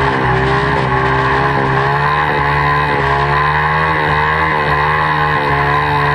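Honda 50 cc mini bike's four-stroke single-cylinder engine running hard under the rider, its pitch dipping and rising every half second or so as the throttle is worked.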